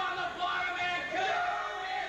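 Several performers' voices on stage, a mix of calling out and singing.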